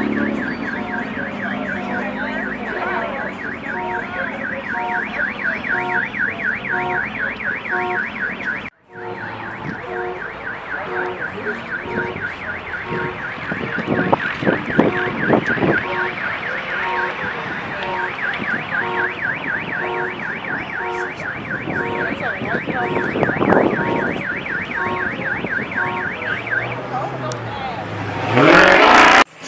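A fast, steady electronic warble repeating several times a second, like a siren or car alarm, over a regular beat of short pitched notes. It breaks off briefly about nine seconds in and resumes. Near the end a sound swells upward.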